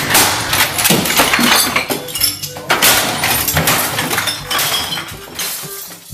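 Repeated crashing and smashing as objects around a computer desk are struck and broken, with glass breaking and clinking among the blows.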